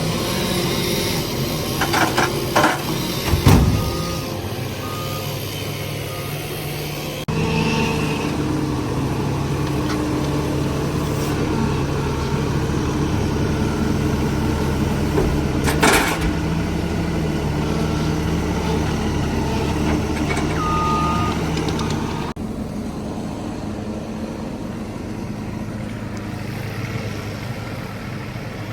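Heavy equipment's engine running steadily, its pitch and loudness shifting abruptly twice. A few sharp knocks, and a couple of brief beeps, lie over it.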